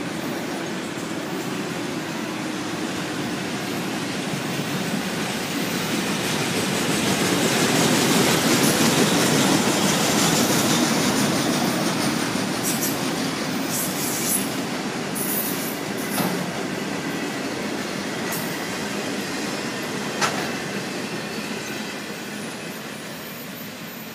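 A freight train's autorack cars roll past, steel wheels rumbling and rushing on the rail. The sound swells to its loudest about a third of the way in, with a few sharp clacks later on, then fades as the end of the train moves away.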